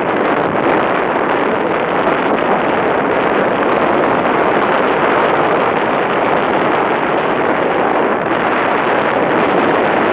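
Wind noise from the airflow rushing over the microphone of a hang glider in flight: a loud, steady rush.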